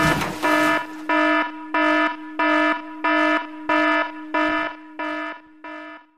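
Electronic alarm sound effect: a buzzy, pulsing beep repeating about one and a half times a second, growing fainter over the last couple of seconds. A brief noisy whoosh comes through just after it starts.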